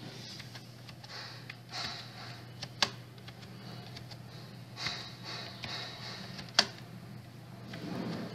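Computer keyboard keys pressed one at a time, slowly and unevenly, with a few sharp clicks standing out, over a steady low hum.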